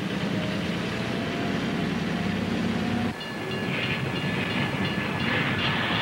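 Front-end loader's diesel engine running with a steady low hum. After a sudden cut about three seconds in, a railroad car's rumbling metal noise takes over, carrying thin, steady high-pitched tones.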